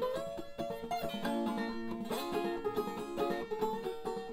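Background music: a tune played on plucked strings.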